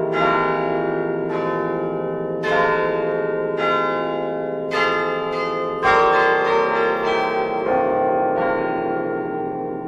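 Church bells ringing: struck about once a second, each stroke ringing on and overlapping the next. The strokes come quicker about six seconds in, then the ringing fades away near the end.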